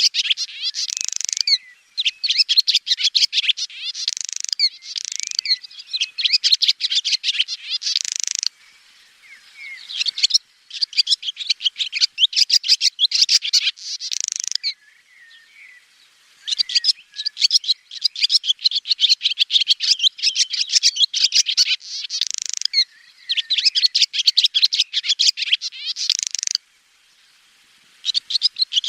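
Swallow singing: long runs of rapid, high twittering notes in phrases a few seconds long, broken by brief pauses.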